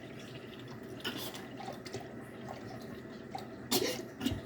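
Faint trickle of liquid being poured into a measuring cup, with a few light knocks, the louder ones near the end.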